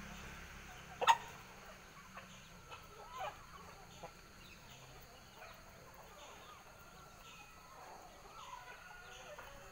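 Aseel chickens clucking quietly, with one sharp, loud click about a second in and a few fainter ticks after it.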